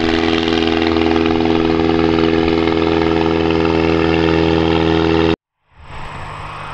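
Avid Flyer light kit plane in flight, its engine and propeller droning loud at a steady pitch. A little over five seconds in the sound cuts off sharply, and a fainter, distant drone follows.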